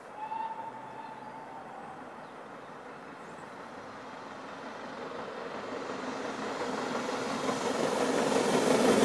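A GWR Castle class 4-6-0 steam locomotive hauling its train on approach, the rumble growing steadily louder through the second half. Near the start comes one short, steady whistle note lasting about a second.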